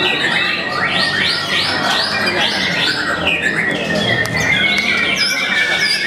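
White-rumped shama (murai batu) singing in its cage: a quick run of repeated rising-and-falling notes, about three a second, over other birds singing.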